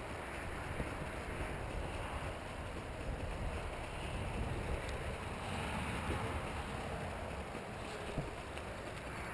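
Wind rushing and buffeting across the microphone, a steady rumbling noise.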